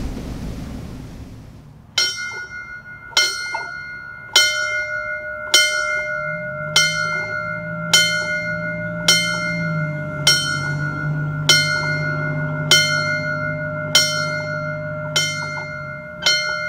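A single church bell tolled about thirteen times at an even pace, roughly one stroke every 1.2 seconds, each stroke ringing on at the same pitch. The strokes begin about two seconds in, after faint hiss, and a low hum sits beneath them through the middle.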